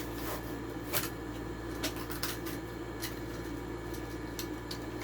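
Hot Wheels blister pack being handled and opened: scattered light clicks and crinkles of plastic and cardboard, over a steady low hum.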